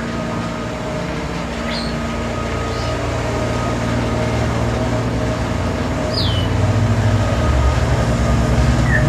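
Bobcat skid-steer loader's engine running steadily, growing louder about six seconds in. A few short high chirps sound over it.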